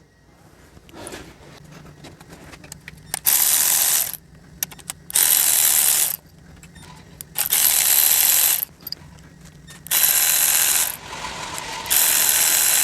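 Ratchet wrench clicking in about five bursts of a second or so each, backing out the screws that hold a CVT transmission's valve body, with small clicks and handling noises between the bursts.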